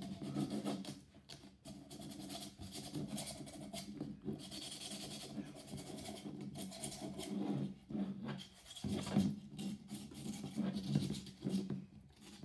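Hand sanding the edges of a 3D-printed plastic planter: repeated rasping strokes of abrasive on plastic.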